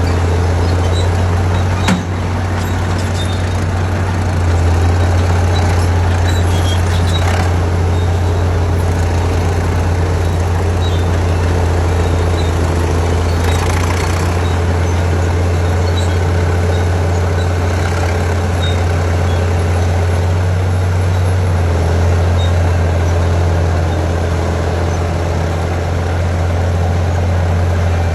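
Engine of a vintage track loader running steadily with a deep, even hum, with one sharp knock about two seconds in.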